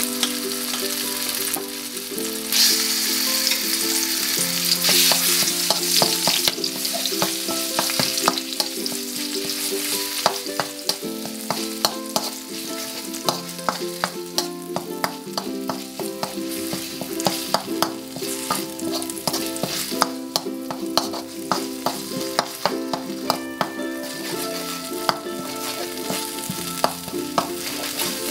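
Red curry paste sizzling in hot oil in a metal wok, stirred and scraped with a metal spoon that clicks and taps against the pan again and again. The sizzle is strongest in the first few seconds.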